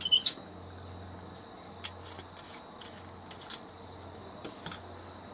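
Handling noise from a small brass butane torch head: a few sharp metallic clicks about a second's fraction in, then scattered light clicks and rubbing as it is turned over in the hands.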